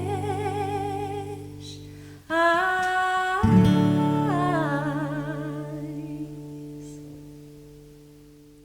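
Acoustic guitar playing the song's final chords, struck again about two and three and a half seconds in, under a wordless sung note with vibrato. It rings out and fades away to end the song.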